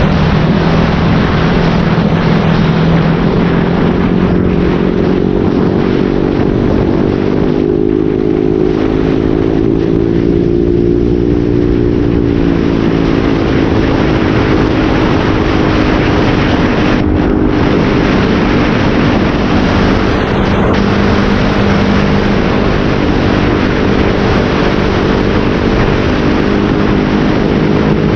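Motorcycle with an SC Project aftermarket exhaust and modified elbow pipe running under way, a steady exhaust note whose pitch rises and then eases off about a third of the way in, over a steady rushing noise.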